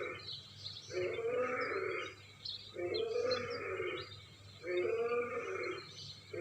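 A sound-effect call of the extinct American lion: a moaning big-cat grunt repeated about every two seconds, each about a second long, over a steady low hum.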